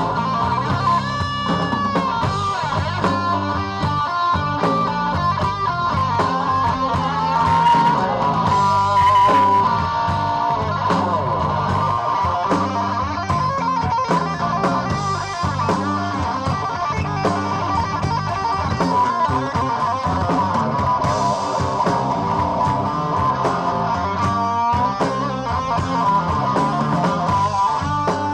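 Blues-rock band playing live: a lead electric guitar through Marshall amplifiers plays sustained notes that bend up and waver with vibrato, over drums and bass guitar.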